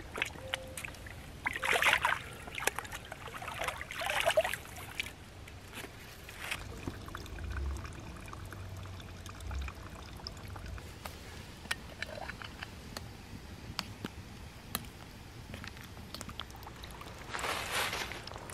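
Water gurgling and sloshing as a water-filter bag is dipped and filled in a shallow creek. There are two splashy bursts in the first few seconds and another near the end, with a quieter stretch of faint scattered ticks between them.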